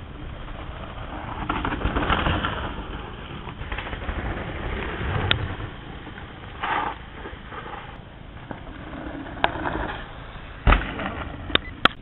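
Mountain bike ride recorded on a bike-mounted or helmet camera: wind rush and the rattle and rumble of the bike over a rough dirt trail. Several sharp knocks come near the end.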